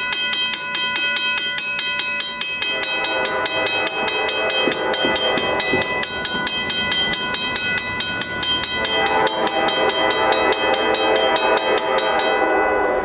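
Railroad grade-crossing warning bell ringing fast, about four strokes a second, starting suddenly and stopping shortly before the end. A locomotive air horn sounds over it in two long blasts, the first from about two and a half seconds in, the second from about nine seconds.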